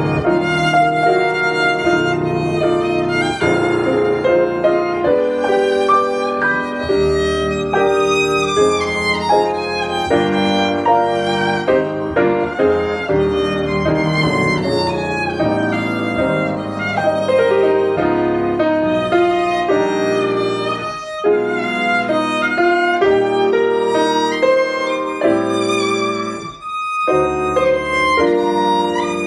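Violin playing a melody over piano accompaniment: a recorded violin-and-piano duet.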